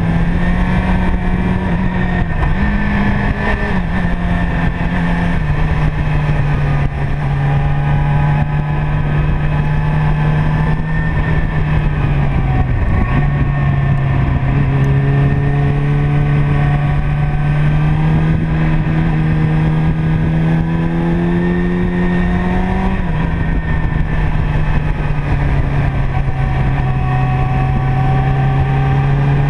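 Motorcycle engine running steadily at road speed, its pitch slowly creeping up and then dropping sharply as gears change, about halfway through and again about three quarters of the way in, with wind rushing over the microphone.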